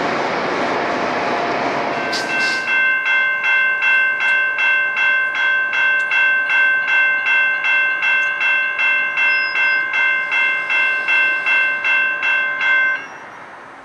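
For about the first two seconds, the steady rumble of a train standing at a station platform. Then a railroad grade-crossing bell rings in an even rhythm of nearly three strikes a second while the crossing gates lower, and stops abruptly near the end.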